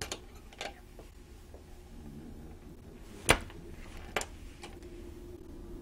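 A few short, sharp clicks or knocks, the loudest about three seconds in, over a faint steady hum.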